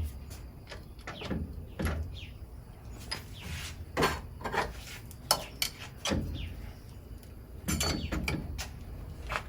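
Metal parts clicking and clinking in irregular short knocks as a machined turn-signal switch arm is press-fitted into an aluminium block.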